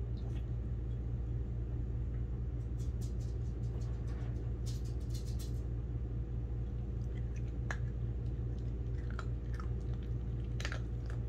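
Small Pomeranian–Chihuahua mix dog chewing dog food, a run of crisp crunches a few seconds in and then scattered crunches near the end. A steady low hum runs underneath.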